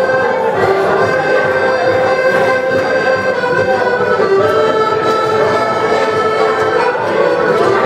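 Traditional dance music led by an accordion, playing continuously with held, sustained notes.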